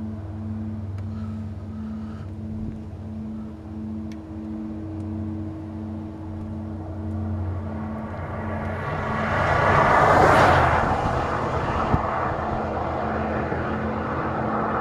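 A steady low hum with a tone pulsing about twice a second, which the recordist blames on a large engine at the industrial plant. A car passes on the road, swelling to the loudest point about ten seconds in, and a short knock follows soon after.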